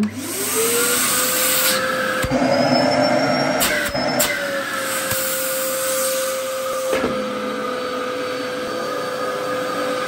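Dyson DC07 upright vacuum cleaner, fitted with a 120-volt motor, switched on: the motor whine rises in pitch over about a second, then runs steadily with suction noise. It gets louder for a couple of seconds, with a few clicks and knocks, as it is pushed over carpet.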